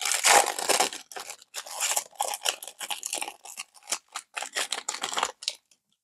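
Plastic wrapper of a trading-card pack being torn open by hand: a longer rip at the start, then a run of short crinkles and rustles that stops abruptly about five and a half seconds in.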